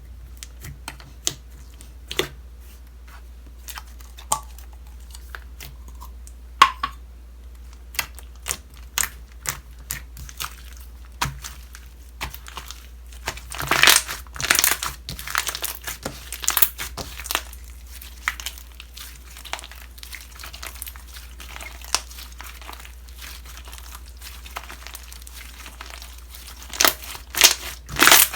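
Slime being squished, poked and stretched by hand: scattered sticky clicks and crackles, growing dense and crackly about halfway through and again near the end.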